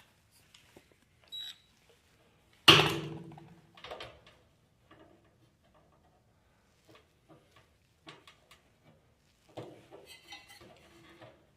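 A single loud metallic clang about three seconds in, ringing briefly as it dies away, from the sheet-metal shell of a kerosene torpedo heater being handled during reassembly. Scattered light clinks and rattles of metal parts follow, with a busier cluster near the end.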